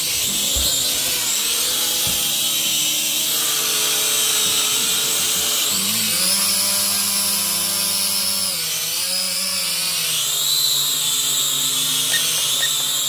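Syma X5HW quadcopter's small brushed motors and propellers whining steadily, the pitch shifting up and down with the throttle and stepping up about halfway through.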